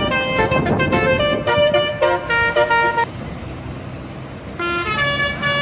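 Bus telolet horn playing a quick melody of short changing notes, breaking off about three seconds in to a stretch of engine and road noise, then sounding again near the end.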